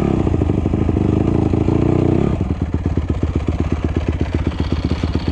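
Honda CRF150R's single-cylinder four-stroke engine running at an even, rapid putter, with a steady higher note over it for about the first two seconds before it settles to a plain idle.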